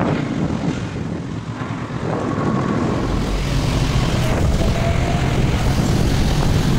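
Motorcycle engine running under way, with wind rushing over the microphone; the low rumble grows louder about three seconds in.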